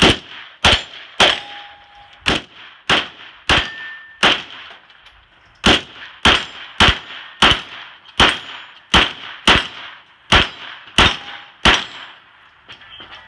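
Pistol-caliber carbine firing a rapid string of about eighteen shots, roughly two a second, with a short pause about four seconds in. The hits ring out on the steel plate targets.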